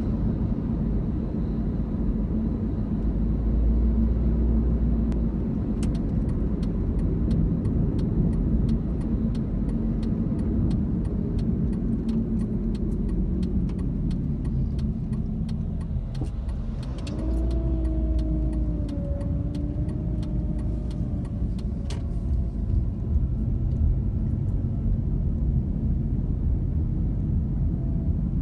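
Car driving, heard from inside the cabin: a steady low rumble of engine and tyres on the road. A run of light ticks sounds through the middle, and a brief steady hum sits on top near two-thirds of the way in.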